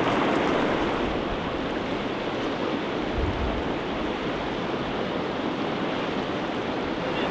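Shallow, rocky river rushing steadily over stones.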